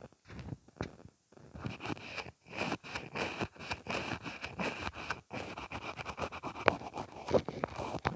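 Mascara wand scraping in and out of its tube, a dense run of quick scratchy strokes that starts after a few scattered clicks about a second and a half in.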